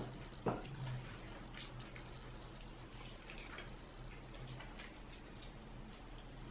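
Close-up eating sounds: quiet wet chewing, lip smacks and small clicks as barbecued chicken is torn and eaten by hand, with one sharp knock about half a second in.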